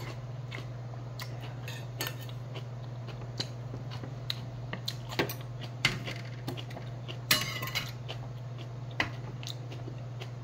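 Stainless steel spoon and small metal bowls clinking and knocking as they are handled and set down on a wooden table, with a denser clatter about seven seconds in. A steady low hum runs underneath.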